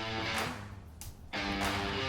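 Background music: strummed guitar chords, a new chord struck about every second and a half, with one landing about 1.4 s in.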